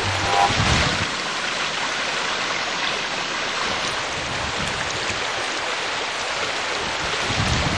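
Steady rush of flowing water, an even hiss. A brief short tone and a low bump come about half a second in.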